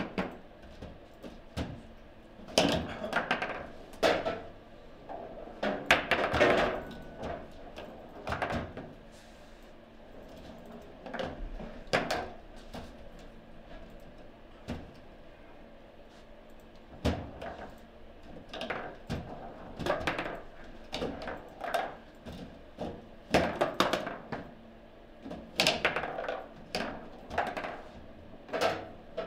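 Table football (foosball) table in play: irregular sharp clacks and knocks as the ball is struck by the rod-mounted figures and hits the table, some coming in quick runs of several hits.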